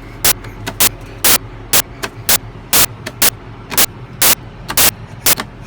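Loud, sharp crackling clicks about twice a second over a steady low mechanical hum.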